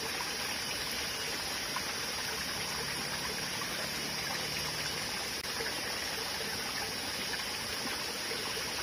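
Shallow, clear forest stream trickling steadily over rocks and gravel.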